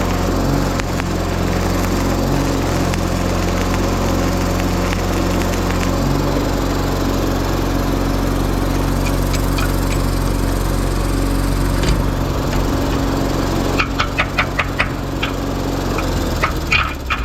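Portable engine-driven welder running steadily under the crackle of stick welding, its engine note changing about six seconds in. Near the end, a run of sharp metallic taps, about three a second.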